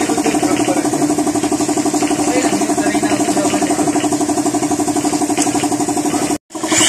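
A small motor or engine running steadily with a fast, even pulse. It cuts out abruptly near the end, and a different running sound with a strong hiss takes over.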